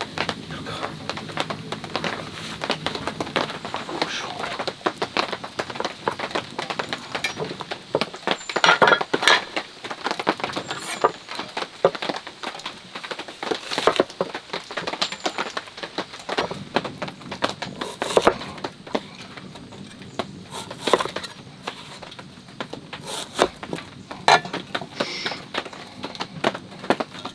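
A heavy cleaver cutting through an Asian pear on a wooden board, with several sharp knocks as the blade meets the wood, over continuous light crackling.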